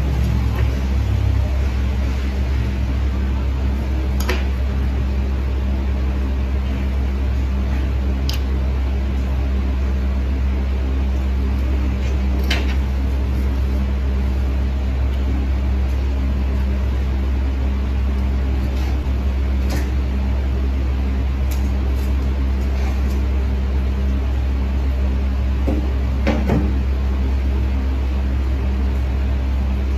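A steady low mechanical hum, with a handful of faint sharp clicks scattered through it.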